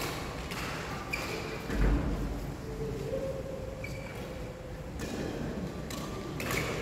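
Badminton doubles play: a racket hits the shuttlecock several times, with short shoe squeaks on the court mat. A heavy thud of a footfall comes just under two seconds in.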